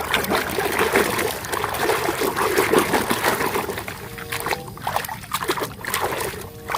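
Water trickling and splashing over a muddy toy vehicle as it is washed clean, starting abruptly and going on unevenly.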